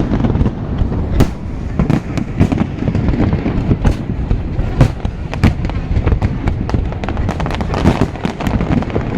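Fireworks display: a rapid, unbroken series of sharp bangs, several a second, over a continuous low rumble.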